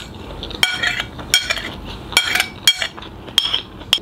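Metal spoon clinking and scraping against a ceramic plate while scooping up food: several short ringing clinks, irregularly spaced.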